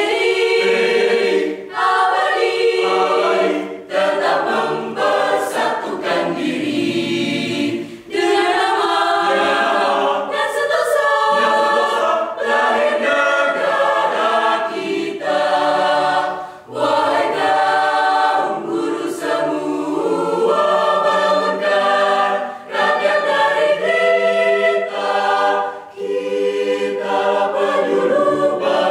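Mixed choir of men's and women's voices singing a cappella in parts, in phrases with brief pauses between them.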